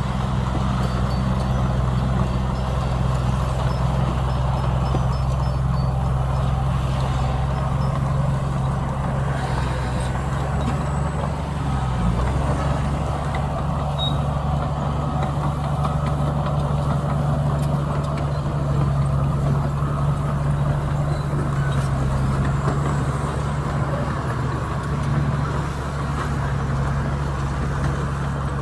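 Diesel engine of heavy earthmoving equipment running steadily under work, its low note shifting slightly about twelve seconds in.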